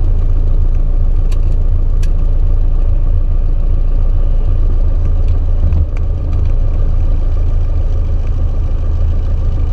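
Socata TB9 Tampico's four-cylinder Lycoming piston engine running steadily at low taxi power, a deep even drone with the propeller turning slowly, heard from inside the cockpit.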